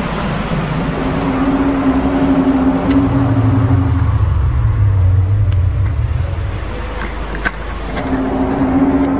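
Loud, drawn-out low drone of the kind circulated as the 2011 'mystery sounds': a steady tone that gives way to a deeper rumble a few seconds in, then returns to the higher tone near the end.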